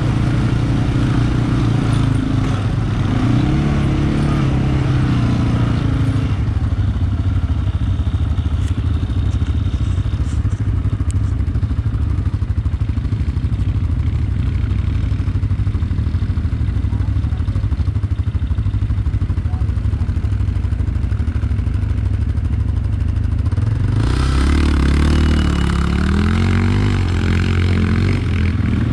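Quad bike (ATV) engine running under load on a rough, rocky climb. The revs rise and fall in the first few seconds and again near the end, and run steadier and lower in between.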